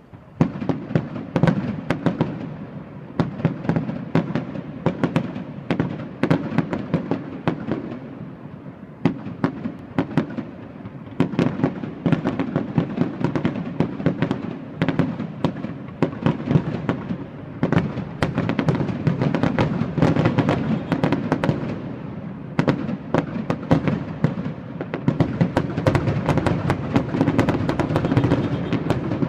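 A fireworks display's finale: a rapid, continuous barrage of aerial shell bursts and crackling, with booms rumbling underneath, growing denser and louder near the end.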